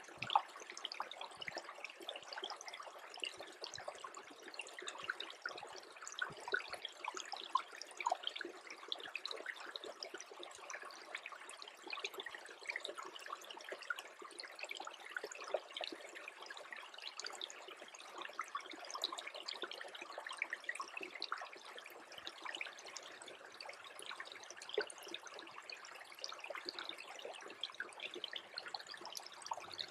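Small brook that is freezing over, its water trickling with a dense, steady patter of tiny drips and gurgles.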